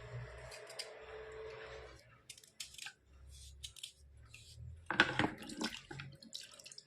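White slate pencil material being scraped with a steady rasping noise for about two seconds, then a few scattered small clicks, and a loud burst of crisp crunching clicks about five seconds in.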